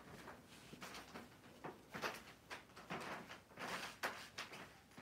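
Quiet room with faint, scattered soft rustling noises.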